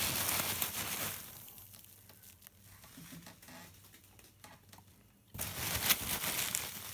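Foam packing peanuts and bubble wrap being scooped out of a cardboard box by hand: rustling, squeaking and crinkling. It comes in two bursts, one at the start and one about five seconds in, with quieter handling between.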